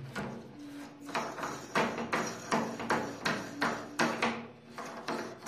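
Round metal rose of a cylindrical door lock being twisted by hand off its threaded spindle, a rapid run of short metallic clicks and scrapes, about three a second.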